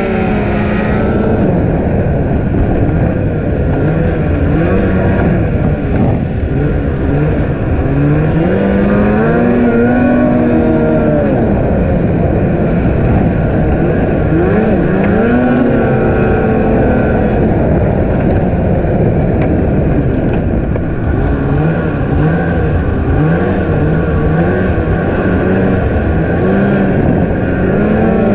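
Snowmobile engine running at speed, its pitch rising and falling again and again as the throttle is worked, over a steady rushing noise.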